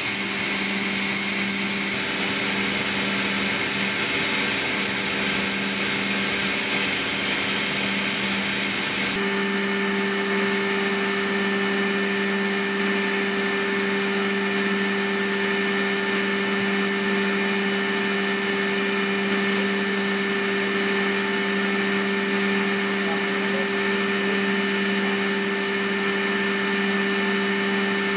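Steady drone of an MV-22 Osprey's turboshaft engines and prop-rotors heard inside the cabin, with a steady low hum and a thin high whine over it. The hum and whine grow stronger about nine seconds in.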